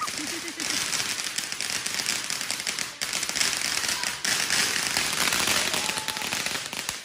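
Firecrackers going off in a long rapid run: a dense, continuous crackle of pops, with a brief break about three seconds in.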